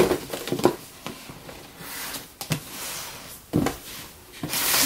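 Rustling of packaging and a shoe box being handled by hand, with a few light knocks and taps as it is moved, and a louder rustle near the end.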